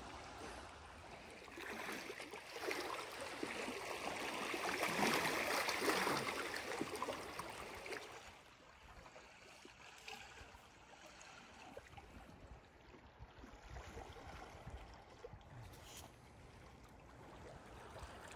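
Small lake waves washing and lapping against a rocky shoreline, swelling louder several seconds in, then settling to a quieter wash from about eight seconds on.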